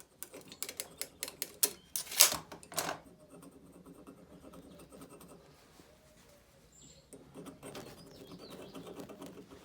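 Irregular clicks and light knocks from handling a tool and a metal bar on a workbench while measuring. The three loudest come close together about two seconds in, with fainter clicks later on.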